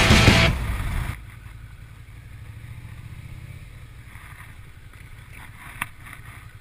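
Music cuts out about a second in. After that, the Suzuki Gladius SFV650's 645 cc V-twin engine runs quietly at low revs with a low pulsing rumble as the bike rolls slowly. There is one sharp click near the end.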